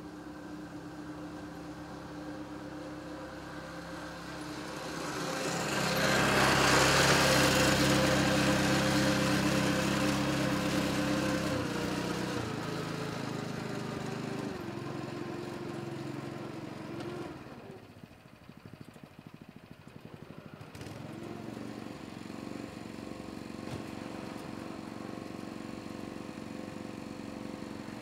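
Delivery truck's engine and machinery running. It grows loud with a rushing hiss about six seconds in, then its pitch steps down several times and drops away about two-thirds through, before steadier running resumes.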